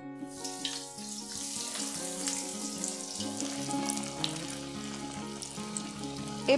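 Breadcrumb-coated bread rolls sizzling in shallow hot oil in a frying pan, the sizzle starting as the first roll goes in and a second roll added partway through. Light ukulele background music plays underneath.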